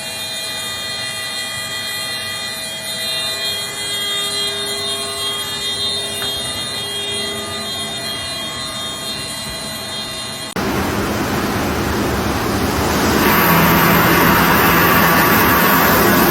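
A steady hum with several held tones over a noisy background. About ten seconds in it cuts abruptly to loud, even rushing floodwater, which grows louder a couple of seconds later.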